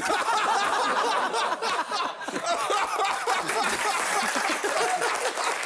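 Studio audience laughing together, breaking out at once in response to a punchline and carrying on as a dense, steady wash of many voices.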